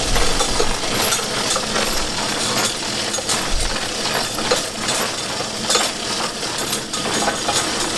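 Busy fish-cleaning dock: a steady wash of noise with frequent sharp metallic clinks, such as chains and steel hooks on a fish-hanging rack.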